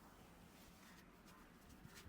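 Near silence with faint soft rubbing and a few light clicks: hands massaging an oiled scalp and hair.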